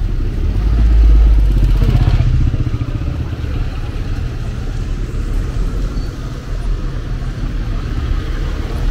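Street traffic: a motor vehicle passes close by, loudest about one to two seconds in, over a steady low traffic rumble.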